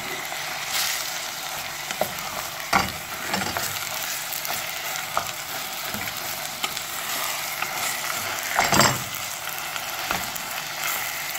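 Minced chicken and chopped onion sizzling in hot olive oil in a stainless steel pot, with a utensil scraping and knocking against the pot now and then as it is stirred; the loudest scrape comes about nine seconds in.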